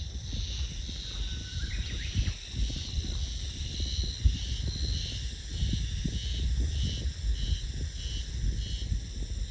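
Outdoor ambience: a small animal's high call repeated about twice a second, clearest in the second half, over a low, uneven rumble, with one brief knock about four seconds in.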